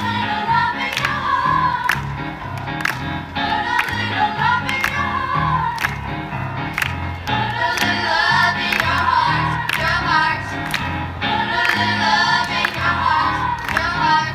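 Children's choir singing a soul-pop medley in unison over accompaniment with a moving bass line and a steady drum beat.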